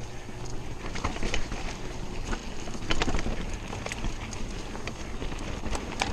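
Mountain bike riding fast down a dirt trail: knobbly tyres rumbling over the ground with wind buffeting the camera microphone, and sharp knocks and rattles from the bike as it hits bumps.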